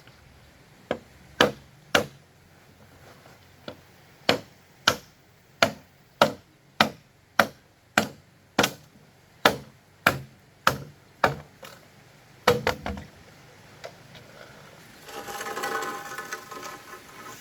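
A blade chopping bamboo: a steady run of sharp strikes, about one every half-second, stopping about thirteen seconds in. Near the end a short sound with several pitches comes in.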